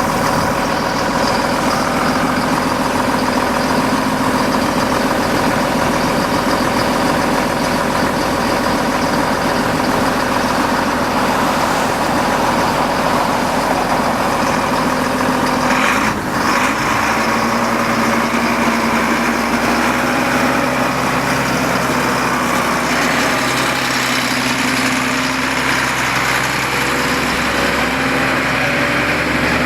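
2005 Massey Ferguson 8480 tractor's diesel engine running steadily at idle. About sixteen seconds in there is a brief sharp clack, and after it the engine note sits slightly lower.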